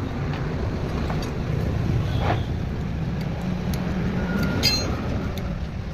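Motorcycle engine running steadily, with a few light clicks over it.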